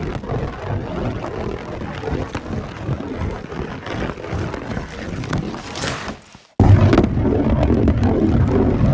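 Bowling ball rolling down a lane: a low rumble with scattered clicks. The sound cuts out briefly about six and a half seconds in, and a louder rolling rumble starts.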